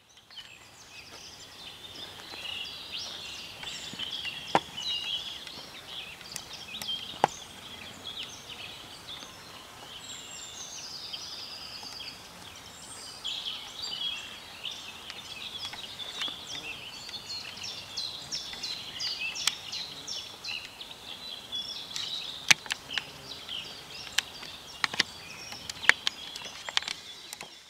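Birds chirping and singing in a dense high-pitched chorus, with a few sharp clicks now and then.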